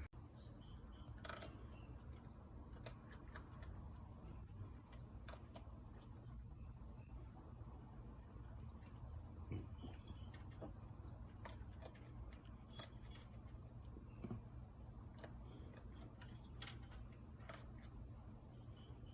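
Crickets trilling steadily at a high pitch, with faint scattered clicks and taps.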